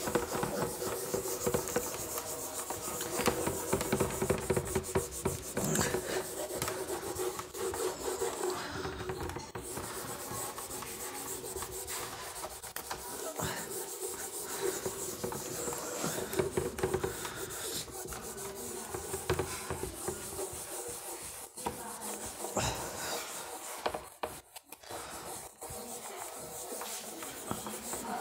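A board duster wiping a whiteboard: continuous back-and-forth rubbing strokes of the eraser pad across the board's surface.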